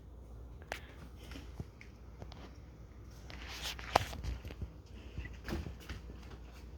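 Faint scattered clicks and knocks, the sharpest about four seconds in.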